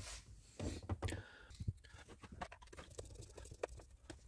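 Faint, scattered small clicks and scrapes of a hand screwdriver being set into and turning a screw in plastic dashboard trim, after a brief rustle of handling.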